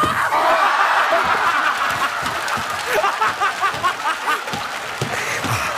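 Studio audience bursting into loud laughter and shrieks, with clapping, just after a sharp crack right at the start.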